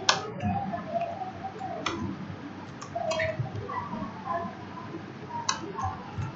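Computer mouse and keyboard clicks: four sharp, separate clicks a second or more apart, over faint background noise.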